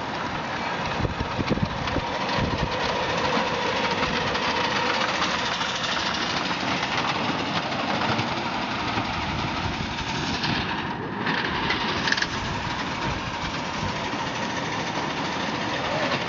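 Miniature live-steam locomotive running on the track, with a steady hiss of escaping steam.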